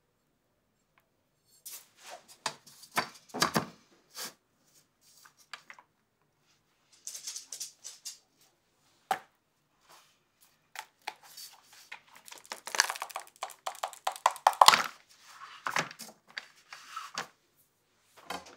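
A flexible silicone mold being flexed and peeled off a frozen gianduja disk on a perforated metal tray: scattered clicks and scrapes at first, then dense rubbery crackling and peeling noises, with one sharp knock about three quarters of the way through.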